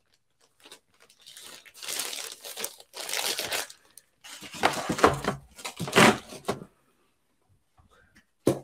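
Clear plastic bag crinkling and rustling in several handfuls as a graded comic slab is handled, with a short sharp knock near the end.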